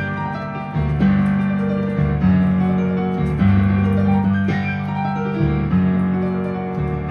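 Piano playing a slow piece, a low chord or bass note struck about once a second with melody notes above, each left to ring and fade.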